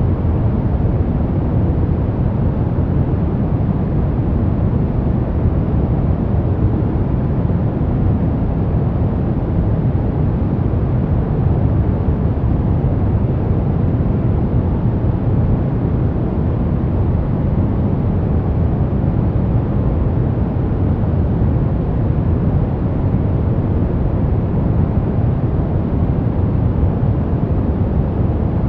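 Steady synthetic white noise for baby sleep, weighted toward the low end: an even, deep rush with no change or events.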